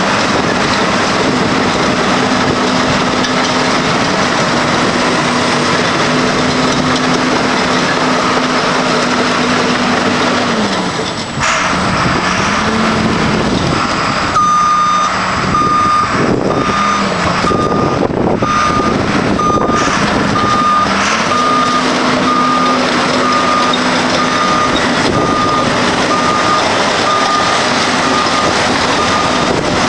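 John Deere 750C crawler dozer's diesel engine running, its pitch dipping for several seconds a little over a third of the way in before it picks up again. From about halfway its reverse alarm beeps steadily, about once a second.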